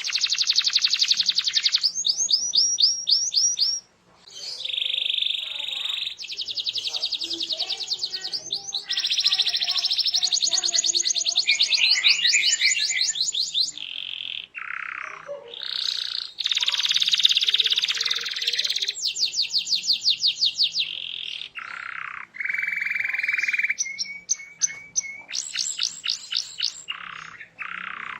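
Domestic canary in full, continuous song: long runs of rapid trills, switching every second or two between high, fast rolls and lower, buzzier phrases, with a brief break about four seconds in.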